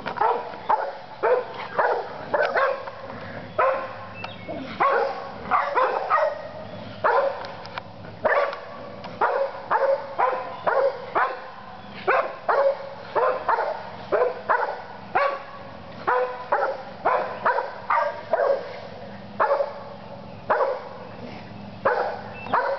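American bulldog barking in play: short sharp barks, about two a second, coming in irregular runs.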